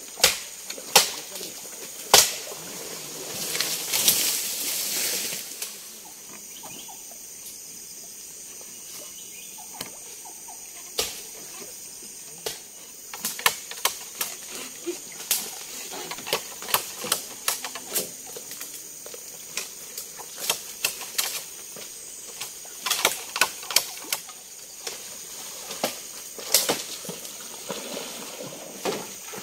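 Irregular sharp clicks and knocks with rustling, and a longer burst of rustling hiss about three to five seconds in, over a steady high-pitched chorus of night insects.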